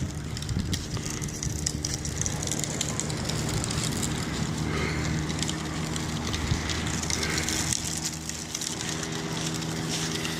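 Wind rushing and crackling over a phone microphone, with a steady low hum underneath.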